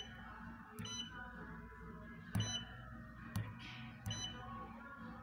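Siemens SIMATIC HMI touch panel giving short high beeps and sharp clicks as its screen is tapped, a few times about a second apart, over a steady low hum.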